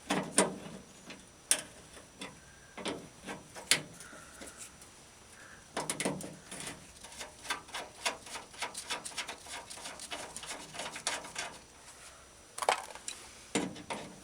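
Hand tool working on the door's window-track nuts: a ratchet clicking in quick runs, with scattered sharp metal knocks and clunks.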